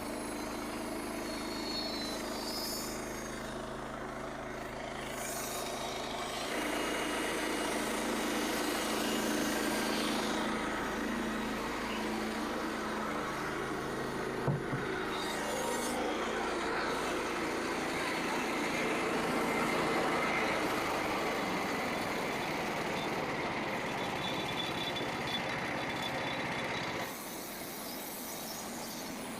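Frontier OS27 portable bandsaw mill running steadily, sawing a red oak log. The noise grows louder and rougher a few seconds in and drops back shortly before the end, with one short knock about halfway through.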